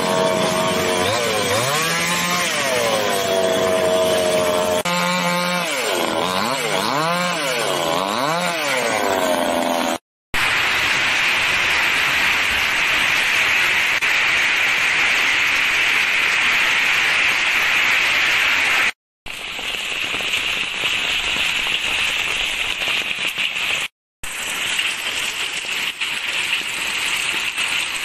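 A chainsaw revving up and down over and over as it cuts fallen trees. After a break about ten seconds in, it gives way to heavy hail pelting a corrugated roof as a steady, loud hiss with two brief breaks.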